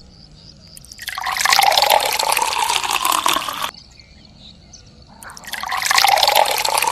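Water pouring, in two spells of a few seconds each that start and stop abruptly.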